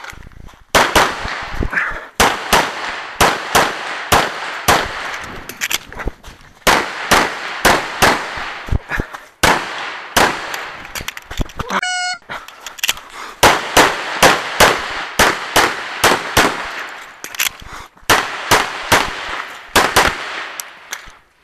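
Rapid .45 ACP pistol shots from a 1911, fired in quick runs of pairs with short pauses between strings.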